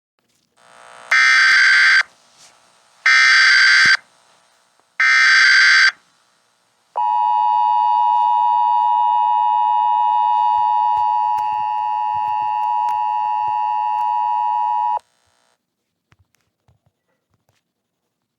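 Emergency Alert System signal: three short bursts of the screeching digital header data, then the steady two-tone attention signal for about eight seconds, cutting off abruptly.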